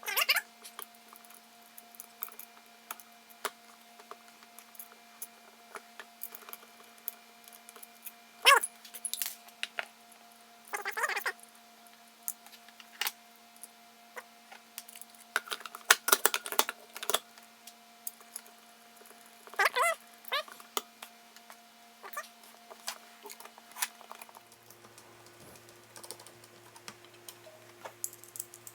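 Small metal screws and grinder parts clicking and clinking as 4.5 mm screws are started by hand into a Mazzer Mini coffee grinder. The sound comes in scattered taps, with a few louder knocks spread through.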